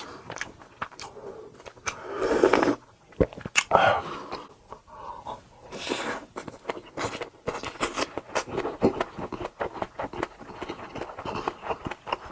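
Close-miked eating of chicken curry: wet chewing and biting, with many quick mouth clicks and smacks and a few louder, fuller bites.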